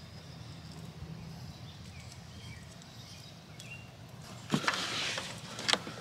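Quiet background for the first four seconds or so, then, about four and a half seconds in, rustling and a few sharp clicks as hands handle the power wire against the Jeep's plastic door-sill trim.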